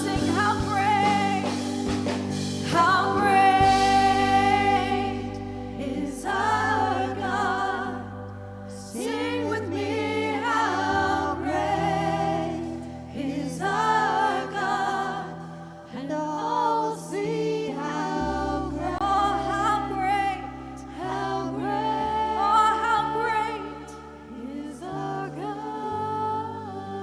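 Gospel worship song: voices singing a melody over held low chords that change every few seconds.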